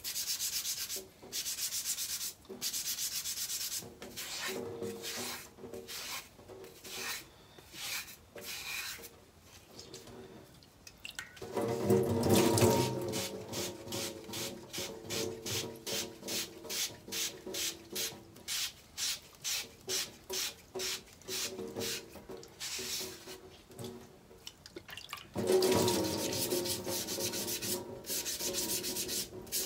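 Scouring pad scrubbing a ceramic water filter candle, rubbing strokes repeating at about two a second, with louder stretches about twelve seconds in and near the end. The scrubbing is removing grime from a clogged filter that has been slowing the water flow.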